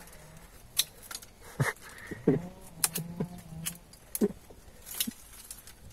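Dry bamboo stems and twigs cracking and rustling as a person pushes through a dense thicket: a string of about seven sharp snaps, roughly one a second.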